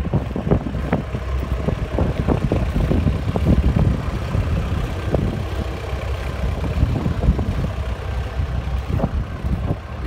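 Perkins diesel engine of a skid steer idling steadily.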